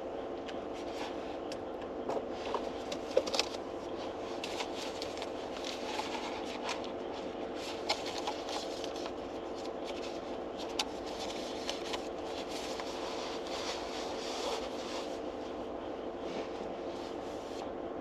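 Steady even hum inside a car, with scattered light ticks and crackles over it; a few ticks near the start and about 8 seconds in stand out as sharper.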